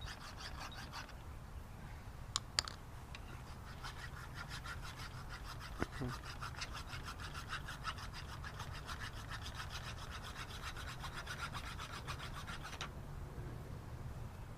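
Rapid, evenly repeated rasping strokes of a hand tool, breaking off briefly near the start and stopping abruptly near the end. Two sharp clicks come about two and a half seconds in, and a single knock comes around six seconds.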